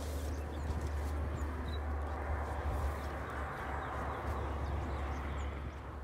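Wind buffeting the microphone outdoors, a steady low rumble with a rushing hiss, and a few faint high chirps.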